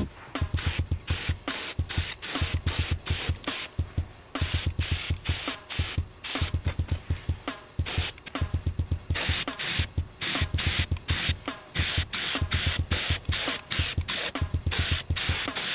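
Paint spray gun applying black paint to an alloy wheel in short, repeated bursts of hissing spray.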